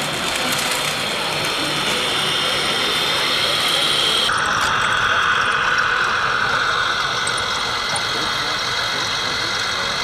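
Radio-controlled model truck running: a steady whine from its drive motor and gears over outdoor background noise. The pitch of the whine drops abruptly about four seconds in.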